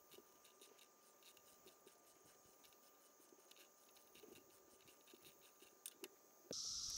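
Near silence with faint, irregular clicking and scraping of a ratchet wrench and long spark plug socket being worked back and forth to unscrew a spark plug.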